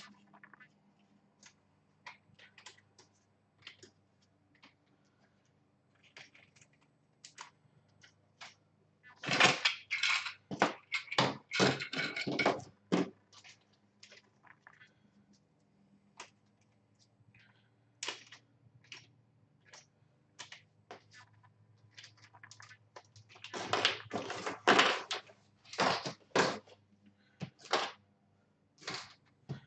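Small plastic parts and tools being handled and set down: scattered clicks and taps, with two stretches of dense clattering, about nine seconds in and again around twenty-four seconds, over a faint steady hum.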